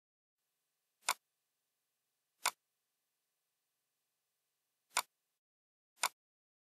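Computer mouse clicks: four single sharp clicks, irregularly spaced, about one to two and a half seconds apart.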